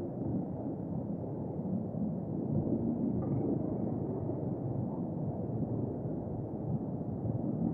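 Steady rumble of wind and road noise with the motorcycle's engine while riding along.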